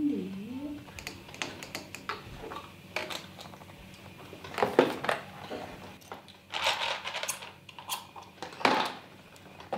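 Irregular small clicks, taps and knocks of plastic bottles, a dropper bottle and containers being handled and set down on a kitchen counter, the loudest knocks about halfway through and near the end.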